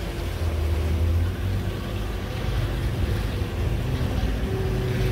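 Boat engine running with a steady low hum. Water sloshes against the hull and wind blows on the microphone.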